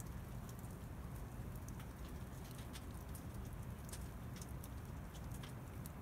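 Quiet outdoor background: a faint, steady low rumble with scattered soft, irregular ticks.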